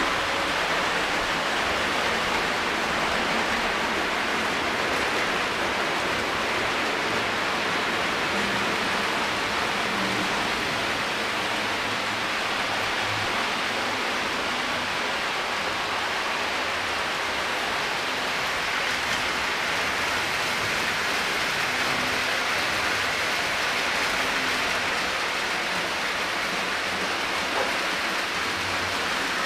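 O gauge Lionel toy trains running on steel three-rail track: a steady rushing noise of wheels rolling on the rails and motors running, with no whistle or distinct knocks.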